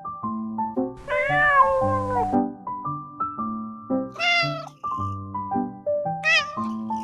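A kitten meows three times over gentle piano music: a long meow about a second in, a shorter one a little past the middle, and a brief high one near the end.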